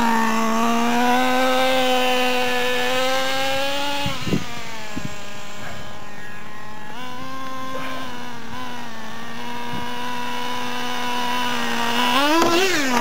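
Small nitro engine of a radio-controlled car running at a steady high pitch, sagging briefly a couple of times, then revved up and down in quick blips about twelve seconds in.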